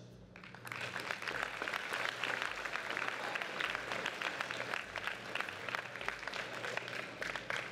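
Large audience applauding. The clapping starts about half a second in, holds steady and eases off near the end.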